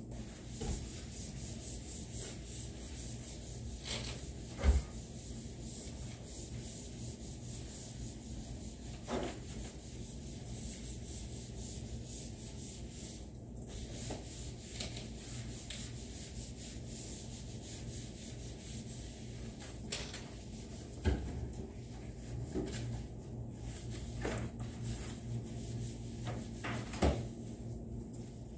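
Cloth wiping and rubbing over a wooden office desktop in repeated strokes, with a few sharp knocks against the desk, the loudest about five seconds in.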